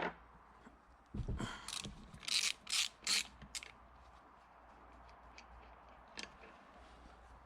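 Hand tools working on an H22 cylinder head: a knock about a second in, then several short rasping strokes of metal on metal, then a few faint clicks.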